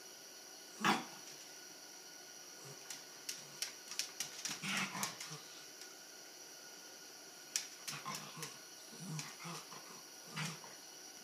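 Small dogs, a papillon and West Highland white terriers, at play: short, scattered dog vocal sounds, the loudest about a second in, mixed with quick clicks of claws on a wooden floor.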